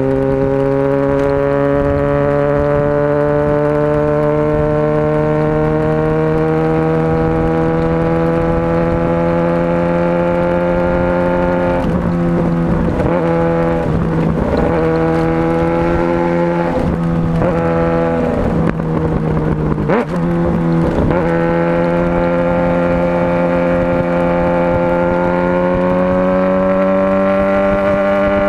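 Motorcycle engine running while riding, a steady engine note that slowly climbs in pitch. About halfway through, the pitch dips and wavers several times as the throttle changes, then it settles into a steady note and slowly climbs again.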